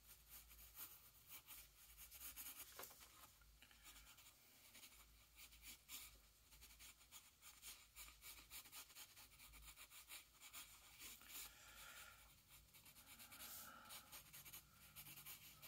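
Graphite pencil sketching on paper: faint, short scratching strokes coming irregularly, one after another.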